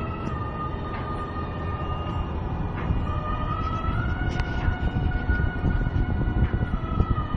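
Road and engine noise inside a car's cabin at highway speed, with a held high tone over it that slowly steps up in pitch about halfway through and back down near the end.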